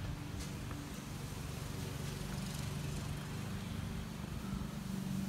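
Steady low hum of a running motor or engine, holding one pitch throughout.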